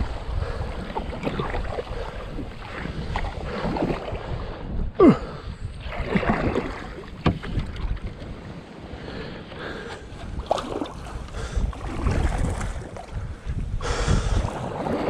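Kayak paddle strokes splashing water, under heavy wind buffeting on a deck-mounted action camera's microphone. Two sharp knocks come about five and seven seconds in.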